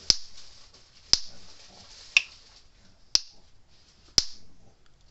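Speedrite 980 electric fence energiser firing its high-voltage pulse across a spark gap: a sharp snap about once a second, five times. It is throwing a strong spark, the sign that the repaired unit is putting out its full output.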